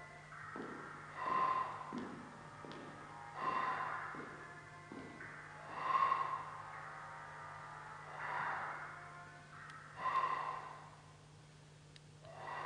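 Breathy, airy swells in a contemporary flute and live-electronics piece. They come about one every two seconds, each carrying a faint whistling pitch, the loudest about halfway through. A steady low hum runs underneath.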